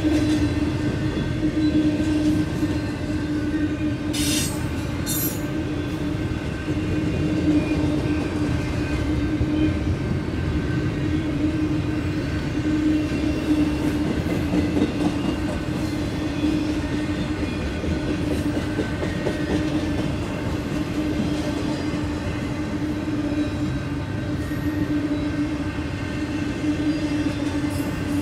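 Union Pacific double-stack intermodal train cars rolling past at speed: a continuous rumble of wheels on rail with a steady tone running under it. A couple of brief high-pitched sounds cut through about four to five seconds in.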